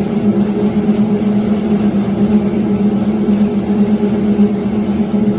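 Spiral dough mixer running with a steady, unchanging motor hum as it kneads dough.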